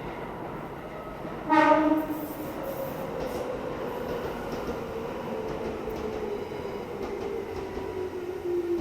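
Tobu electric train sounding a short, loud horn blast about a second and a half in, then its running whine falling slowly in pitch over the rumble of the train on the rails.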